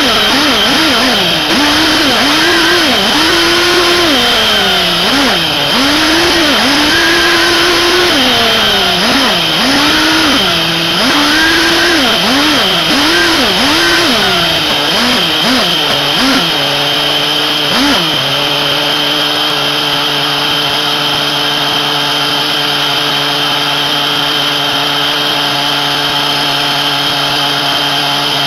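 SH PT21-P3 nitro glow engine (3.48 cc two-stroke) on a 1/8 buggy, revving up and down again and again as the car is driven. About eighteen seconds in it settles into a steady idle.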